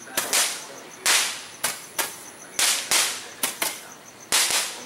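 Firecrackers going off: about a dozen sharp bangs at irregular intervals, some echoing briefly.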